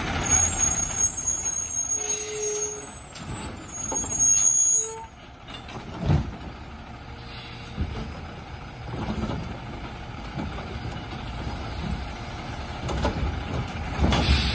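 Automated side-loading garbage truck driving past and pulling to a stop, its diesel engine running, with brake and air hiss as it slows and a loud burst of air near the end.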